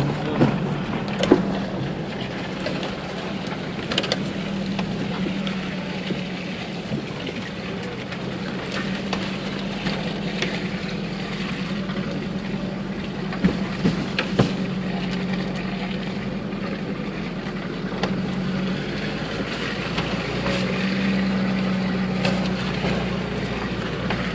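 Off-road 4x4's engine running steadily, heard from inside the cabin, with a few sharp knocks from the vehicle jolting over bumps. The engine grows louder for a few seconds near the end.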